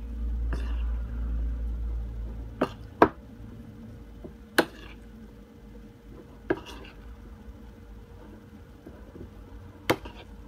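A spoon stirring a thick mash of sardines and flour in a bowl, with about five sharp clinks of the spoon against the bowl at irregular intervals. A low rumble runs through the first couple of seconds.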